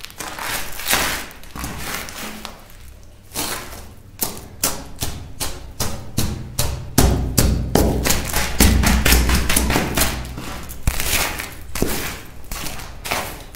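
High-heeled shoes stamping on and grinding brittle white shards against a hard tile floor: a dense run of sharp crunches and heel taps, with heavier thuds about seven to ten seconds in.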